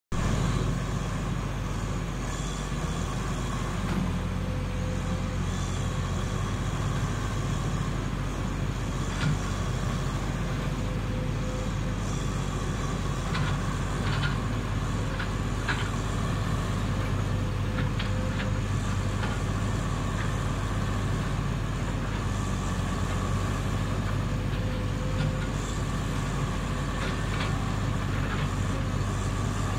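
Caterpillar 330 hydraulic excavator's diesel engine running steadily during its warm-up while the boom and bucket are cycled, with a few faint clicks.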